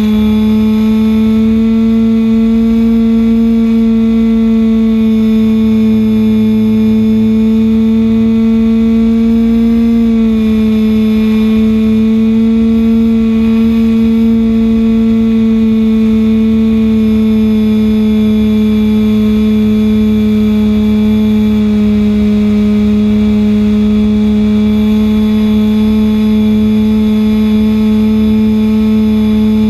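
Supertigre G51 two-stroke glow engine of an RC model plane running steadily in flight, heard from a camera on the plane. Its pitch dips briefly about ten seconds in and sinks slightly later on, over a low wind rumble on the microphone.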